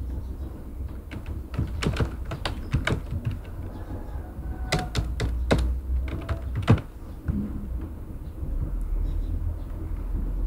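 Computer keyboard keys clicking in two short bursts of typing, over a low steady background rumble.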